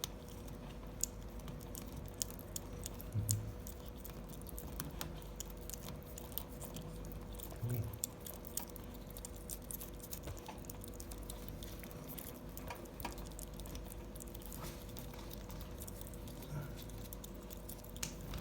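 Cat chewing a treat: many small crunching clicks, with two louder low thuds about three and eight seconds in, over a faint steady hum.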